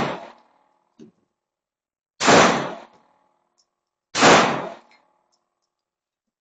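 Airsoft pistol shots at steel targets, two seconds apart, each a sharp crack with a ringing metallic clang. A fainter tap comes about a second in.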